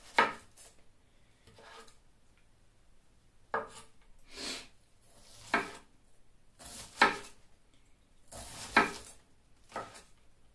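Kitchen knife slicing a head of cabbage and striking a wooden cutting board: about six sharp knocks at uneven gaps of one to two seconds, with softer slicing noise between them.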